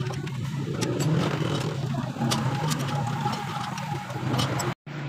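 A steady low engine-like hum with scattered sharp metallic clicks as a wrench turns a bolt on a radiator's steel frame. The sound drops out abruptly for a moment near the end.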